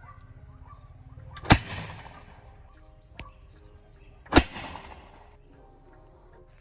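Two loud bangs from a bamboo cannon being fired, about three seconds apart, each with a short echoing tail.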